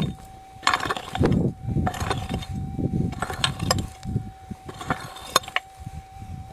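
Pick chopping and scraping into stony red dirt, with gravel rattling, roughly once a second.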